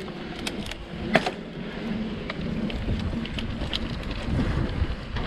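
Electric mountain bike rolling over a dirt trail: steady wind on the microphone and tyre noise, with sharp clicks and knocks from stones and the bike's parts, the loudest about a second in.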